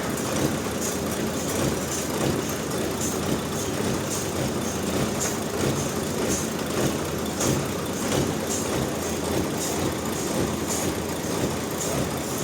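Sawmill machinery running steadily with an engine-like drone and a faint, regular high ticking a little more than once a second.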